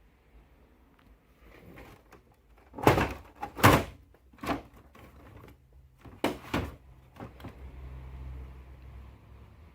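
Plastic knocks and thuds as the covers of an HP Smart Tank 617 printer are lowered and shut: two loud knocks about three seconds in, then several smaller ones.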